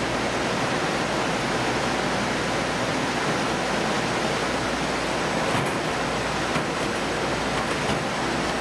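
Steady, even noise of a fish-processing line on a ship's factory deck: machinery running and water flowing, with a couple of faint clicks past the middle.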